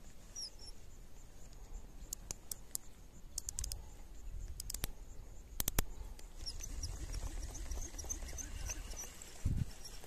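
Baitcasting reel clicking in a few short runs as the rod is handled. In the second half, a rapid series of short, high chirps, over a low rumble of wind and handling on the microphone.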